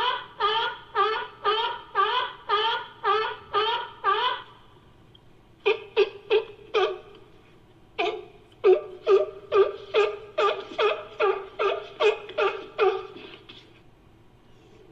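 Sea lion barking: a run of about ten quick, pitched barks, a short burst of four, then a longer rapid run of about a dozen, each bark rising and falling in pitch.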